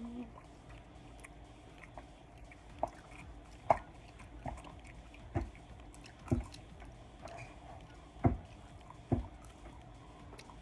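Close-miked eating sounds: wet chewing and mouth noises, with about seven sharp smacks or clicks at irregular intervals of roughly a second.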